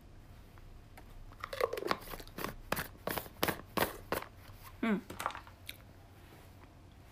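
Crunching and crinkling from a preserved pomelo throat snack being eaten, a quick run of crisp crackles over a few seconds, with a brief hum of the voice about five seconds in.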